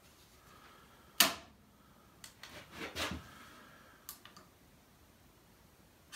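Clicks and knocks of a table saw throat plate being handled and set into the opening in the saw's cast-iron table. The loudest is a sharp knock about a second in, followed by a few lighter clicks and a short rattle.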